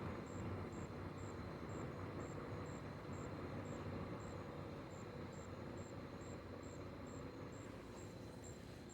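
Night insects: one insect chirping at a high pitch, evenly about twice a second, over a thin steady high drone from other insects. Under them runs a low steady rumble of distant road traffic.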